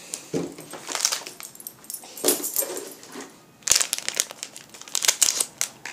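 Plastic snack packet of sour candy straws crinkling and crackling in the hands in irregular bursts as it is handled and opened. A couple of short, lower sounds come about half a second and two seconds in.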